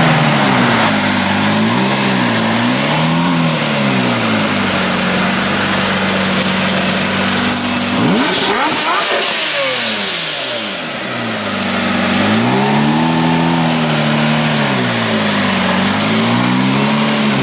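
Lamborghini Murciélago V12 revved while standing: several quick throttle blips rising and falling in pitch, a spell of steady idle, then more blips in the second half. Around the middle another sound sweeps across in pitch and the engine briefly drops back.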